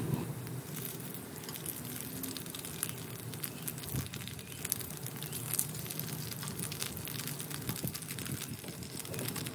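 Tofu cubes frying in shallow oil in a pan, sizzling with a dense crackle of spatters, with a single knock about four seconds in.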